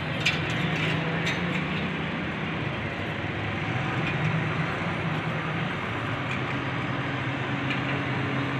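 Diesel engine of a Volvo wheeled excavator running steadily while it digs with its bucket, with a few short clanks in the first couple of seconds.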